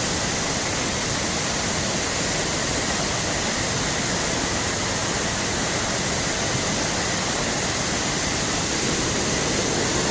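Muddy floodwater rushing down a collapsed road embankment in a steady torrent, a constant loud rushing noise of water.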